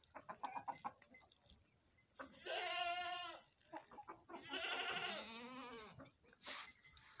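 Goat bleating: two long, wavering bleats, the first a little after two seconds in and the second about a second later. A brief stutter of short calls comes near the start.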